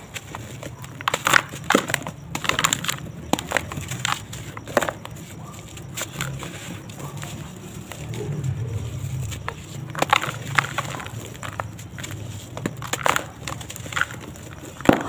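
Dry, crumbly lumps of sand-cement mix crunching and breaking apart in bare hands, with loose grit falling into a plastic tub. The crunches come in irregular clusters of sharp crackles, and the loudest is near the end.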